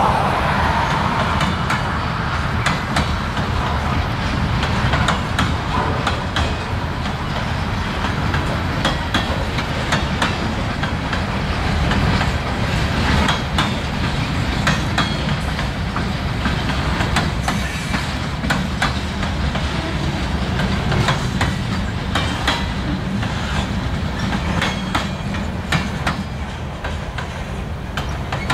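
Freight cars of a passing train rolling by: a steady wheel rumble with frequent clicks and knocks from the wheels on the rails, growing a little quieter near the end as the last car goes past.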